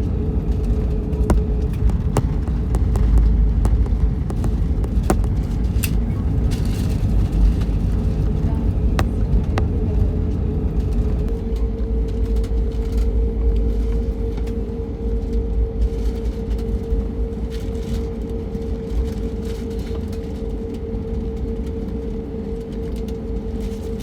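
Airliner cabin noise from a window seat: a deep rumble with a steady engine hum and scattered small rattles and clicks. The rumble eases off in the second half as the aircraft slows on the ground after landing.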